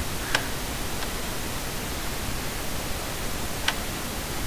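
Steady hiss from the recording's noise floor, with two faint clicks: one just after the start and one near the end.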